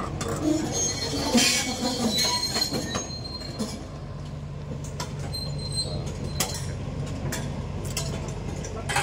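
Excavator's diesel engine running steadily under scattered metal clinks and knocks, with short high-pitched metal squeals about one and a half seconds in and again past the middle.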